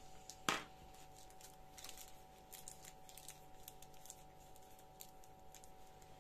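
A single sharp knock about half a second in as metal scissors are set down on a tabletop, followed by faint crinkling and small clicks of a plastic piping bag of icing being handled and squeezed.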